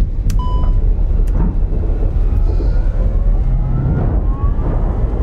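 Airliner cockpit after a double engine failure: a loud, steady low rumble, with a short electronic beep about half a second in, a couple of switch-like clicks in the first second and a half, and faint rising whines later on.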